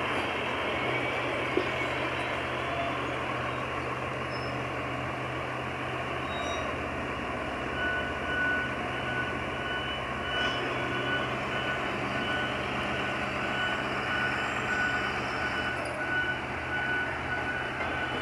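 XCMG GR135 motor grader's diesel engine running steadily at close range, a continuous mechanical rumble. A thin, steady high tone joins about halfway through.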